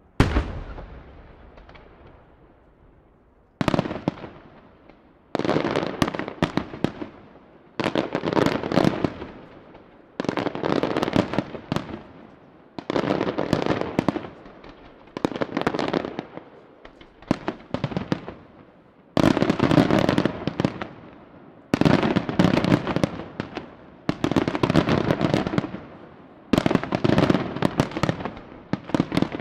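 Aerial firework shells bursting overhead: one sharp bang at the start that dies away, then from about four seconds in a rapid run of shell bursts, one every second or two, each a dense rattle of cracks tailing off.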